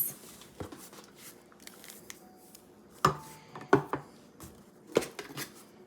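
Metal food cans being lifted out of a box and set down, with several separate knocks spread unevenly across a few seconds.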